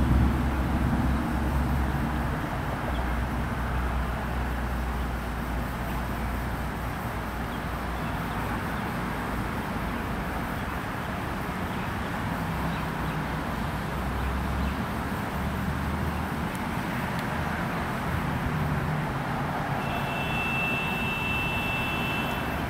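Steady outdoor background noise with the low rumble of a vehicle, strongest at the start and easing off after a couple of seconds. A brief high-pitched tone sounds near the end.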